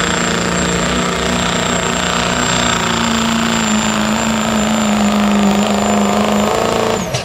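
Chevrolet Silverado's Duramax diesel V8 at full throttle under heavy load, pulling a weight-transfer sled, with a thin steady high whine above the engine note. The revs climb a step about two seconds in and hold, and the sound cuts off abruptly near the end.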